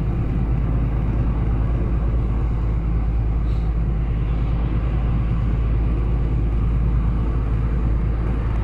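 A lorry's diesel engine and tyre noise heard inside the cab while driving: a steady low drone with an even engine hum that does not change.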